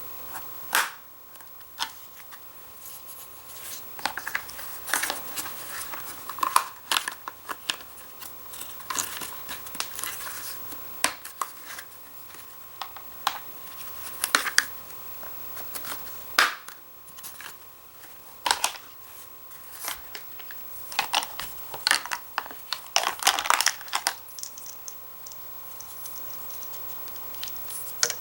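Hard plastic toy pieces handled, knocked and clicked together, in irregular sharp clicks with bits of crinkling and rustling between them.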